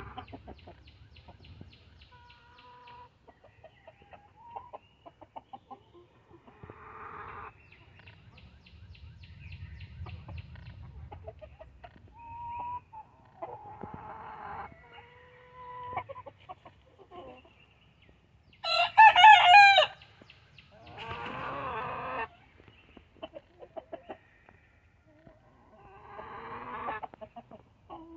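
Backyard chickens clucking, with a few louder calls. The loudest, a short harsh call about two-thirds through, is followed a second later by a longer call.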